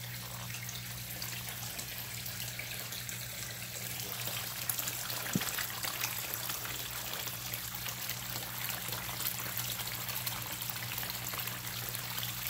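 Sheet waterfall pouring steadily into a koi pond, with a constant splashing where the falling water meets the surface, over a steady low hum. A single brief click comes about five seconds in.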